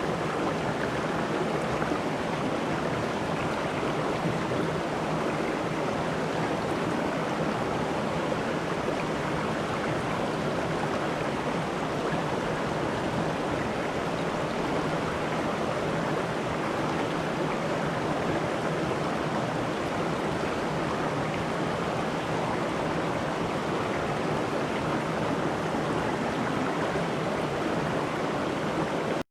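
River or stream water running over rocks, a steady rushing flow.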